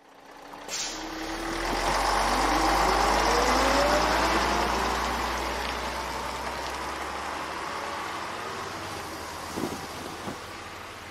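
Steady low rumble and hiss, like a road vehicle going by, with a tone rising in pitch as it swells, then fading slowly. Near the end come two short knocks as a cassette tape is pulled from a jeans pocket.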